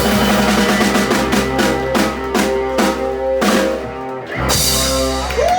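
Live rock band playing: a drum kit strikes a run of accents over sustained electric guitar and bass chords, with a short break about four seconds in before the band comes back in.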